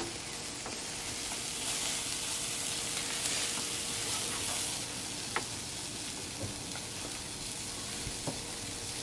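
Chicken and steak sizzling on a hot barbecue grill, a steady hiss that swells a little for a few seconds. A few light clicks of metal tongs against the grate come as pieces are turned.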